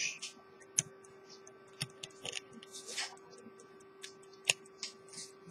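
Small irregular metallic clicks and brief light scrapes from an antique silver-cased pocket watch being handled, its case and gilt movement moved by hand, over a faint steady hum.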